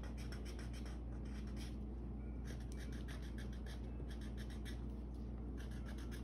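Tip of a watercolor marker scratching across paper in quick short strokes, in bursts with brief pauses; the marker is running low on ink. A steady low hum sits underneath.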